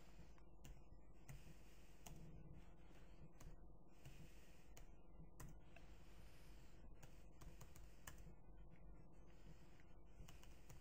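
Faint, scattered clicks of a computer mouse and keyboard over quiet room hum.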